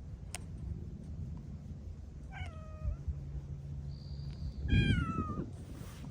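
A cat meowing twice: a short call, then a longer, louder one a couple of seconds later, both falling in pitch.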